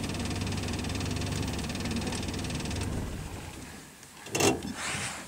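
A vehicle engine idling steadily, then switched off about three seconds in, dying away over about a second. Near the end comes a short, loud noise, then a softer hiss.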